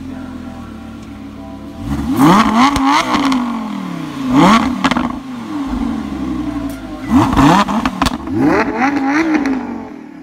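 Lamborghini Huracán's V10 idling, then revved hard several times, each rev rising sharply and falling back, with crackles around the revs. A quicker run of revs comes near the end before the sound drops away.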